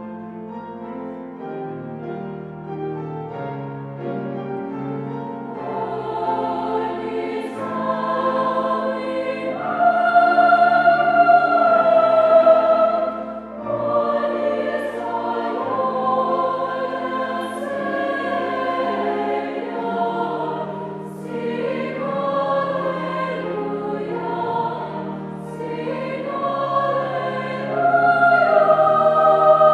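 Youth choir singing a slow song in several parts, starting softly and growing louder at about ten seconds and again near the end.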